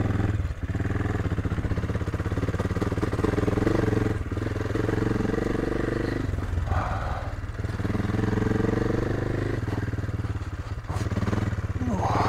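AJP PR7's single-cylinder engine running at low road speed on a loose, stony dirt track. Its steady note drops away briefly about four times.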